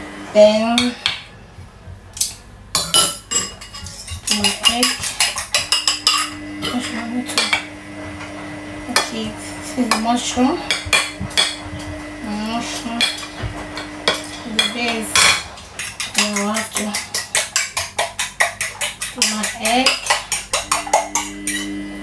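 Metal spoon clinking quickly and repeatedly against a ceramic bowl as eggs are beaten, in several runs of fast taps, with some knocks of a spoon on a metal pie dish.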